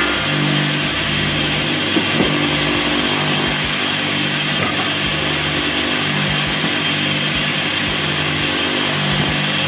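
Homemade table saw, a 7-inch blade on a pulley driven by an electric jet-pump water-pump motor, running steadily with the blade spinning free, no wood being cut.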